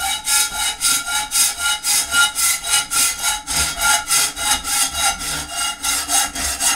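Hacksaw cutting through a 10-24 threaded rod held in a vise, in quick, even back-and-forth strokes of about three a second.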